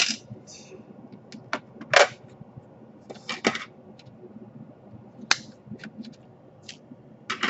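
Irregular sharp clicks and short knocks, a dozen or so, a few of them louder: hand tools, screws and plastic panels handled against a laptop's plastic case as it is taken apart.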